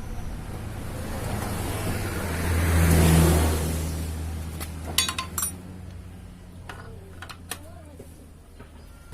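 A motor vehicle engine hum that swells to its loudest about three seconds in and then fades away, with a few sharp metallic clinks later on.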